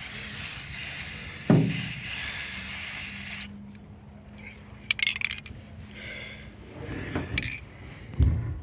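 Aerosol spray paint can spraying in a steady hiss that stops about three and a half seconds in, followed by a few sharp metallic clinks and rattles.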